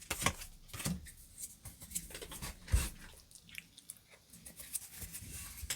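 Pokémon trading cards being handled and flipped through by hand: faint, irregular clicks and rustles of card stock, one somewhat louder knock a little before halfway.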